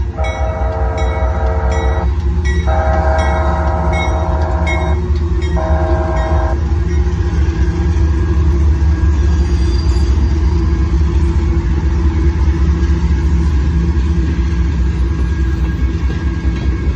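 A Union Pacific freight train's lead diesel locomotive sounds its horn for the grade crossing: two long blasts, then a short one, ending about six seconds in, over a crossing bell ringing. Then comes the loud, steady rumble of the diesel locomotives and freight cars rolling past.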